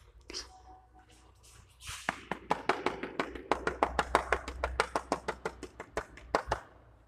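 A rapid, even run of sharp taps or claps, about six or seven a second, starting about two seconds in and stopping after some four and a half seconds.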